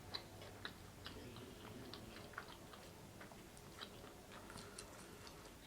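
Soft chewing of cheesy stuffed-crust pizza: a scatter of small wet mouth clicks, several a second.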